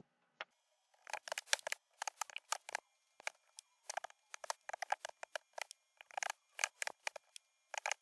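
Typing on a computer keyboard: quick, irregular keystroke clicks starting about a second in, with a brief pause about three seconds in.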